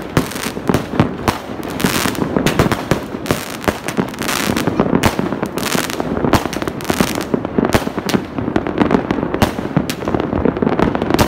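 Fireworks and firecrackers going off all around in a dense barrage: overlapping bangs and crackling with no let-up, broken by a couple of longer hisses.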